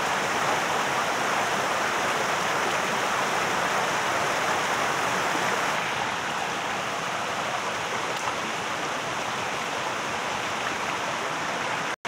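Rushing water of a rocky forest stream pouring over boulders, a steady hiss that turns a little quieter about six seconds in.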